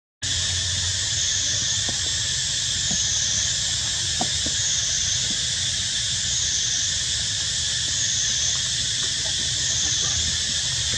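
A loud, steady, high-pitched chorus of forest insects with a slow regular waver about once a second, over a low rumble; it cuts in suddenly at the start.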